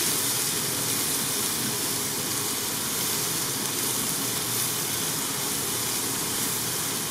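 Diced onions, bell peppers, celery and garlic sizzling steadily in the hot stainless steel inner pot of an Instant Pot on sauté, stirred with a silicone spatula.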